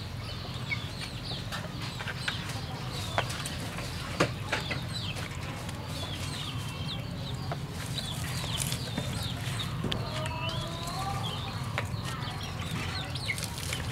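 Chickens clucking, with short chirping bird calls and a steady low hum throughout. There are two sharp knocks about three and four seconds in.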